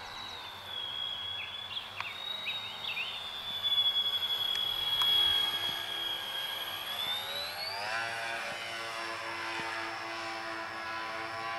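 Twin electric motors and propellers of a scratch-built depron radio-controlled Islander model in flight: a steady high whine that grows louder as the model passes close, then rises in pitch about seven seconds in as the throttle is opened.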